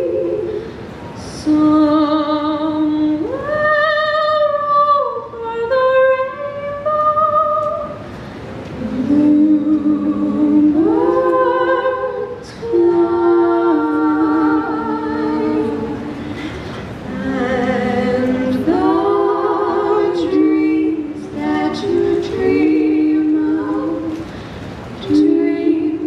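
Three women's voices singing unaccompanied in close harmony through microphones, in phrases of long held notes with short breaks between.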